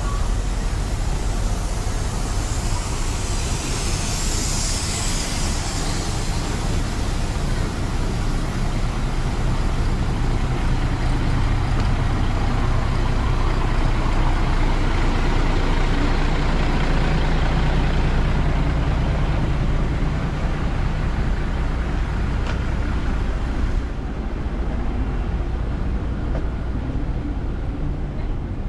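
Diesel railcar engine running steadily, its low hum growing a little louder midway, with a hiss about four seconds in.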